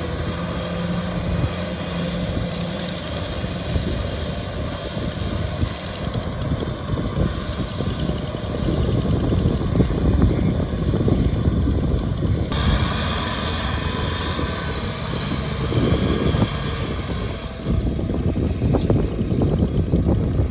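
Kubota M6040SU tractor's diesel engine running under load as it pulls a rotary tiller through wet rice-field soil. The sound shifts abruptly about twelve seconds in and again a few seconds before the end.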